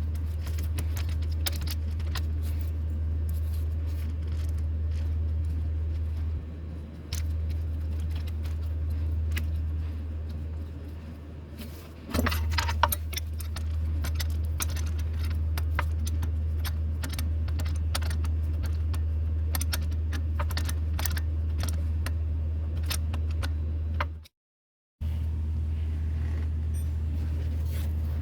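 Metallic clinking, tapping and jangling of hand tools and bolts as a replacement starter motor is being fitted, over a steady low hum.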